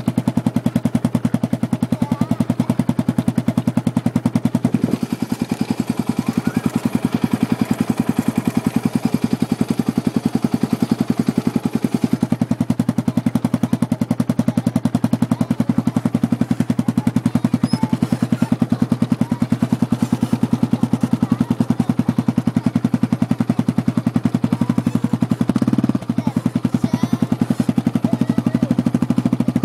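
Small off-road vehicle engine running steadily while towing a sledge on a rope through snow, with a fast, even train of exhaust pulses.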